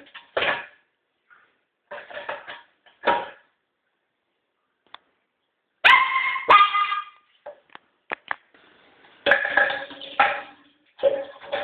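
Small puppy yapping in short bursts with pauses between them, the loudest about six seconds in.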